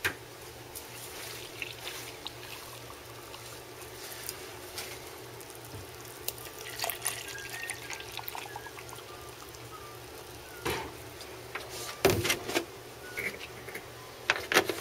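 Milk pouring from a plastic milk jug into a plastic cup of chocolate powder, a steady trickling pour, with a few sharp knocks about 11 and 12 seconds in and near the end.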